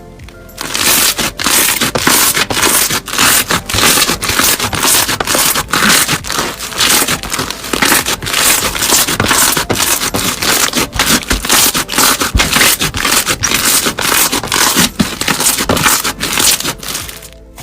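Crunchy slime being squeezed and pressed, giving a dense, continuous crackling and crunching that starts about half a second in and stops just before the end.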